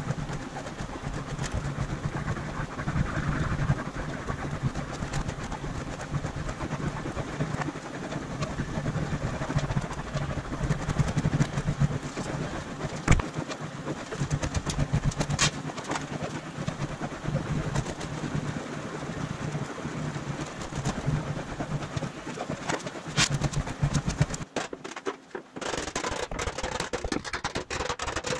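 Aluminium sheet being rolled back and forth through an English wheel: a steady rolling noise with a low hum and a few sharp clicks. About 24 seconds in this gives way to quick sharp hammer strikes on the aluminium panel.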